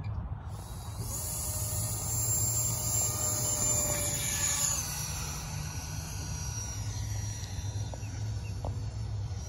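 Electric ducted fan of an E-flite F-16 70 mm EDF model jet whining as the jet takes off. The whine drops in pitch a few seconds in as the jet goes past and climbs away, then fades. A steady low rumble runs underneath.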